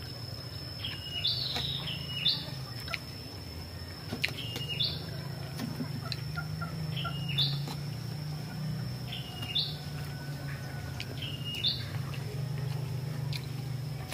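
A bird calling over and over, about every two seconds: each call is a falling whistle followed by a short high note. A steady low hum runs underneath.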